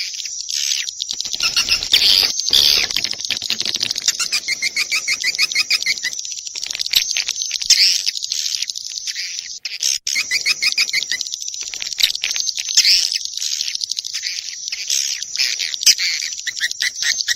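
Swiftlet lure call: a recording of swiftlets twittering, played to attract swiftlets to roost and nest in a swiftlet house. The sound is dense, continuous high chirping, broken by stretches of rapid ticking trills.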